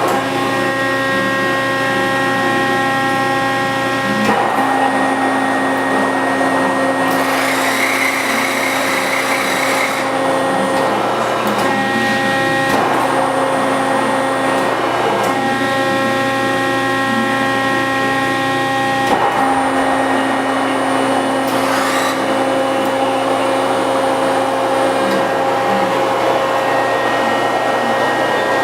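Hydraulic press brake running: the electric pump motor gives a steady whining hum, and its tone shifts several times as the machine works. A hiss rises for about three seconds roughly a third of the way in.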